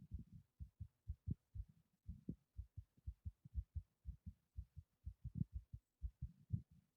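A human heart beating fast, a quick run of low, soft thumps several times a second: the raised heart rate after lifting a heavy object.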